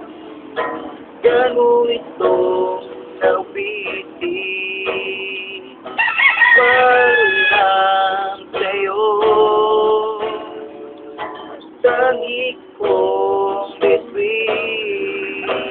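A man singing to his own strummed acoustic guitar, with long held notes that bend in pitch and short breaks between phrases.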